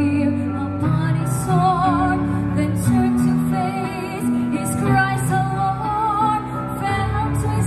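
A woman singing a slow hymn through a microphone and loudspeakers, holding long notes with a wavering vibrato over soft instrumental backing.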